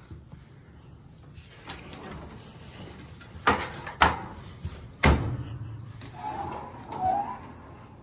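Footsteps knocking on a wooden pull-down attic ladder: three sharp thumps in quick succession around the middle, the last and heaviest as the feet land on the floor.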